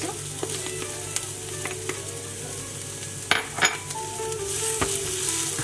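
Chopped ginger and garlic frying in a little oil with onion, red capsicum and carrot in a frying pan: a steady sizzle that grows louder near the end. Two sharp knocks come a little past halfway.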